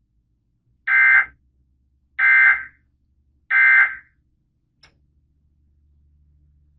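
Emergency Alert System SAME data bursts, three short, evenly spaced buzzy blasts about a second and a quarter apart: the end-of-message code that closes the marine warning broadcast.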